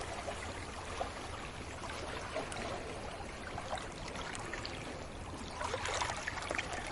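Sea waves washing gently onto a beach: a steady wash of water with fizzing and small splashes, swelling briefly about six seconds in.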